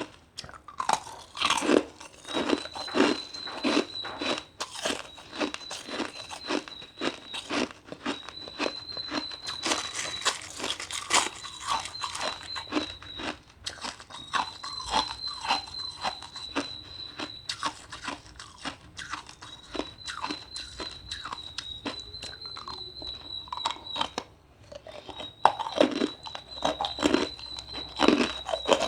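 Ice being bitten and chewed: rapid, irregular crunching, loudest a couple of seconds in and again near the end. A steady high-pitched tone comes and goes behind it in stretches of a second or two.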